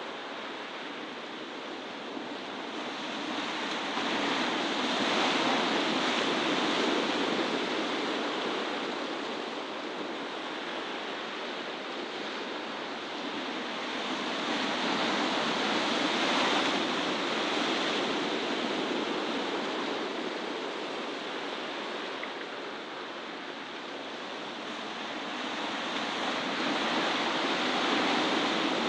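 Sea surf on a rocky shore: a steady rush of breaking waves that swells and eases a few times.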